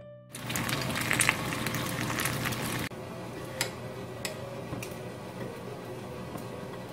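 Fried eggs sizzling and crackling in a frying pan. About three seconds in it drops suddenly to a quieter hiss, with a few sharp clicks as a kitchen knife slices cucumber against a plate.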